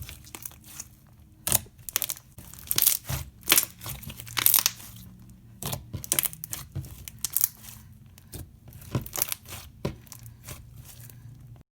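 Slime being squished and worked by hand, giving an irregular run of short crackles and crunches. The audio cuts off just before the end.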